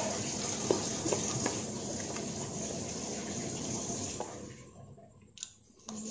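A steady rushing noise, like running water, that fades out about four seconds in. Over it come a few light taps of a metal spoon and fork against a plastic bowl as fried vermicelli noodles are scooped up, and a couple more taps near the end.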